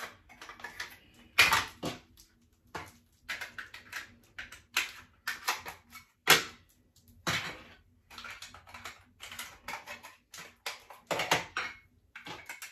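Clear plastic lash cases being handled, slid and snapped shut and set down on a desk: irregular clicks and taps, with a few louder knocks.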